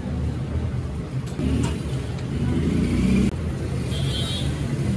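Steady low rumble of a running engine, briefly cut off a little over three seconds in.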